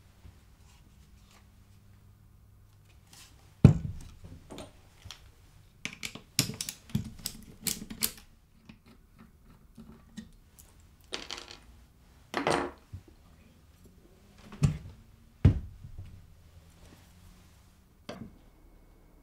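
Handling noise from a Makita compact router, which is not running, as it is turned over and its base plate unscrewed and lifted off: scattered clicks, knocks and short scrapes, with a few louder thumps of the tool set down on the table, the loudest about four seconds in.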